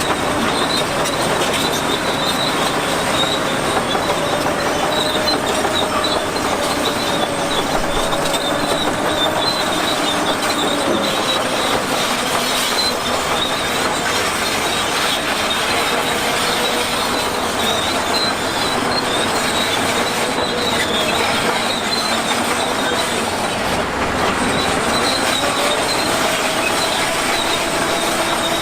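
Bulldozer working: its steel crawler tracks squeal and clank steadily over a running diesel engine, whose note wavers slowly up and down.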